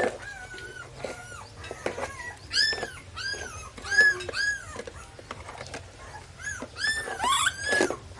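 Baby macaque calling: a string of short, high, whimpering coos, each rising then falling in pitch, coming in clusters of quick calls.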